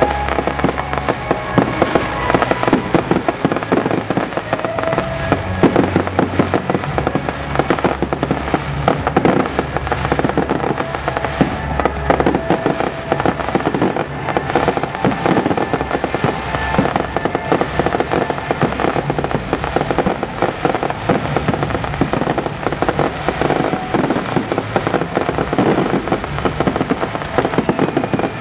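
Fireworks display: a dense, continuous barrage of bangs and crackling shell bursts, one on another without a break.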